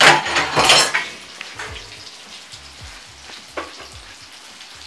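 Chicken frying in hot oil, sizzling. The sizzle flares loudly in the first second, then settles to a steadier hiss with a few light clicks.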